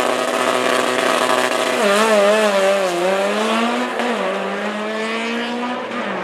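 Drag-racing car engine held at steady revs on the start line, then launching about two seconds in. The note wavers, then climbs as the car accelerates away down the strip, dipping briefly about four seconds in.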